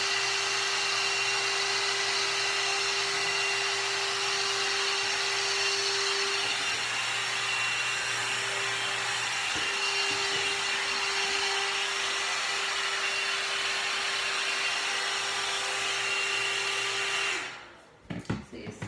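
One Step hair dryer and styler running on its high setting: a very loud, steady rush of air with a steady motor whine, switched off near the end.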